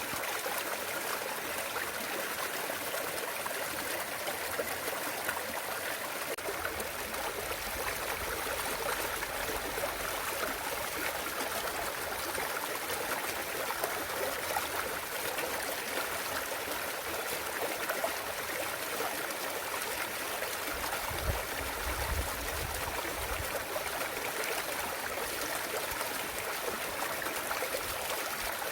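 Clear mountain stream in a valley, water trickling and burbling steadily over rocks, with a faint low rumble twice.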